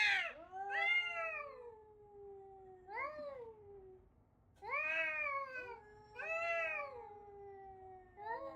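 Domestic cat meowing repeatedly in long, drawn-out yowls, about six calls, each rising and then falling in pitch.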